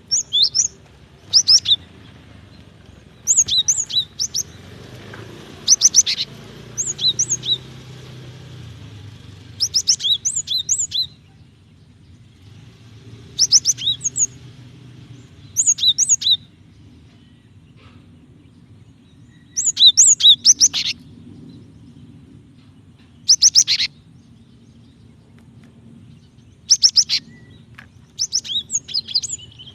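Female cinereous tit (gelatik batu) giving its call to males: short groups of quick, high chirps, one group every two to three seconds, over a faint low hum.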